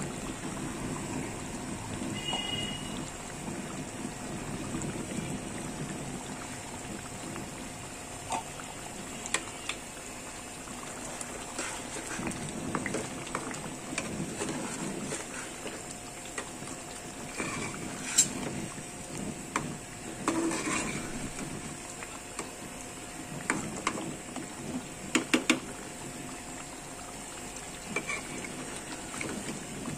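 Thick chicken curry gravy bubbling as it simmers in a pan, with scattered sharp clicks and knocks of a spatula against the pan, loudest about 18 seconds in and in a quick cluster near 25 seconds, over a faint steady hum.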